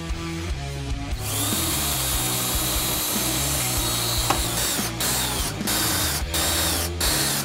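Cordless drill boring out the rivet heads that hold a steel-looking diamond plate kick panel. It starts running about a second in and runs steadily, then stops and restarts briefly several times near the end.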